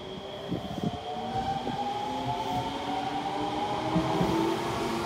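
Odakyu 2000-series electric train (set 2051F) pulling out of the station: several tones from the motor drive climb steadily in pitch as it gathers speed, over a rolling rumble, with a few knocks about a second in.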